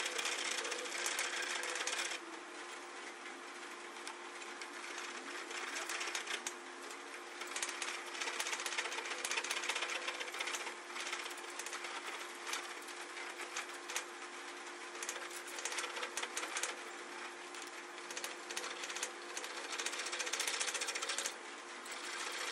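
Spring pole lathe turning a wooden spindle while a hand-held gouge cuts it. The tool scrapes and chatters in a rapid, rattling run of clicks as the rope-driven workpiece spins back and forth. A steady hum runs underneath.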